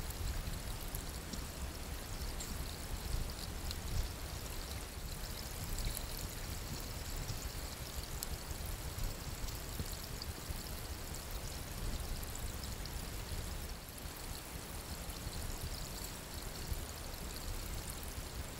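Shallow creek water running steadily, with splashing as hands work among the stones in the water around a gold sluice box.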